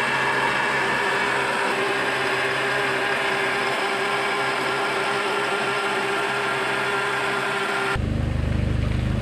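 ATV-mounted electric winch motor running steadily as it pays out its line: an even whine over a low hum. About eight seconds in, the sound cuts to the Stels Guepard 850 ATV's engine running.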